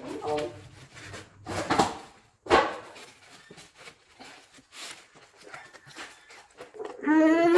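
Irregular crunching and rustling as crispy fried chicken drumsticks are handled and bitten, with a few louder sudden noises in the first three seconds. About seven seconds in, a child's voice starts singing a held, wavering note.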